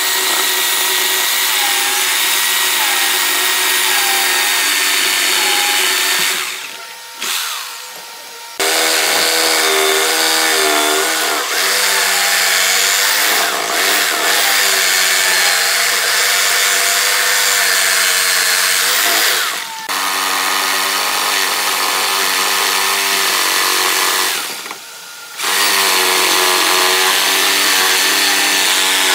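Handheld electric reciprocating saw cutting into a thick hardwood slab. The motor runs loud and steady, its pitch wavering under load, and stops briefly three times: about a third of the way in, near the two-thirds mark and again shortly after.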